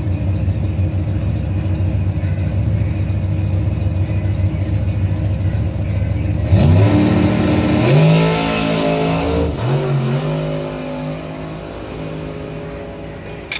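Top Doorslammer drag car's engine running loud and deep on the line, then launching at full throttle about six and a half seconds in. The pitch climbs, breaks at each gear change and climbs again, and the sound fades as the car runs away down the track on a record-setting 163 mph pass.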